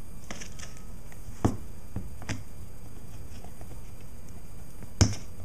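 A clear plastic container handled over a tile floor: light plastic clicks and knocks, the sharpest about a second and a half in, again a little later, and once more near the end.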